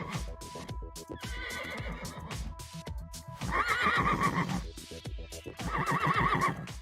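Background music with a steady beat, over which a horse whinnies twice: once about three and a half seconds in and again near the end, each a loud, quavering neigh.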